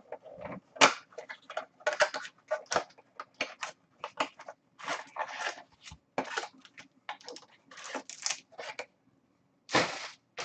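Rustling and crinkling as a cardboard trading-card box is opened and its wrapped card packs are handled, in many short bursts with brief pauses.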